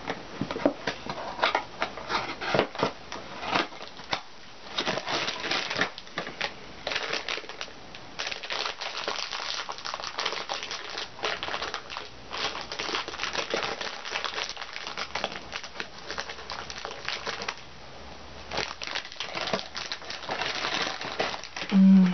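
Plastic sweet wrapper crinkling and crackling in irregular bursts as a bag of gummy sweets is handled and opened. A brief loud low hum near the end.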